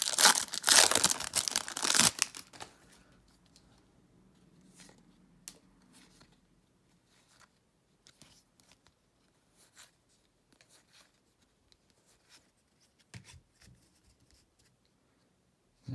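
Foil wrapper of a Topps baseball card pack torn open and crinkled for about two and a half seconds. Then come faint, scattered ticks of cards being flipped through one at a time.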